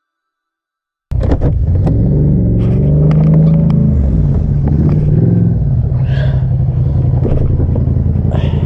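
About a second of silence, then a motor vehicle's engine cuts in loudly and keeps running, its pitch rising and falling once a couple of seconds later, with a few sharp clicks on top.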